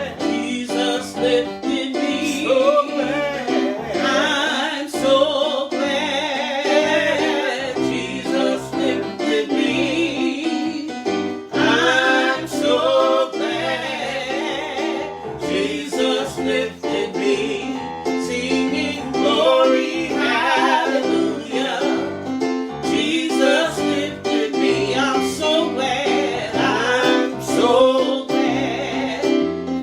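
Gospel singing over keyboard accompaniment: a sustained, wavering solo voice over steady piano chords.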